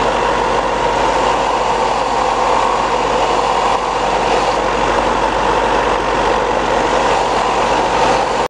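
Benchtop belt sander running steadily, with a wooden lure body pressed against the moving belt to sand a rounded radius onto its end.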